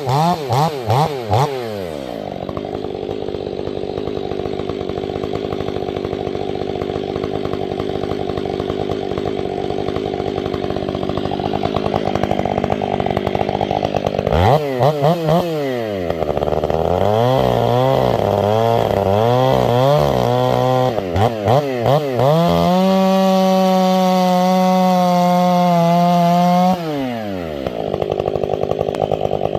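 Chainsaw blipped a few times, then running under load in a cut for about twelve seconds. The throttle is then let off and blipped repeatedly, held at full revs for about four seconds, and dropped back near the end.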